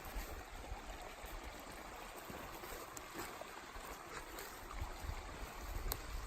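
Water running steadily in an irrigation canal, faint and even.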